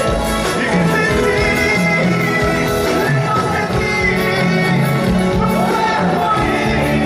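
Live band playing a Latin pop-rock song over a concert sound system, with a steady bass line, guitars and drums, and a singing voice over the top.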